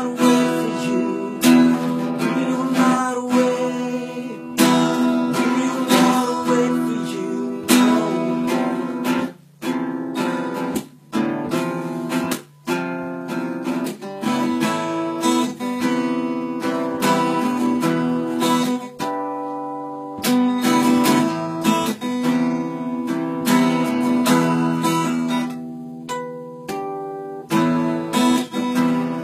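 Acoustic guitar strummed in steady chords, an instrumental stretch of an original song, with a few brief stops between strums about ten to thirteen seconds in.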